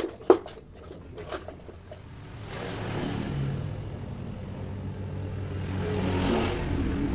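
A few sharp knocks and clicks, the loudest a third of a second in, then from about two seconds in the engine of a small Yamaha underbone motorcycle runs, its revs rising around three seconds in and again near six.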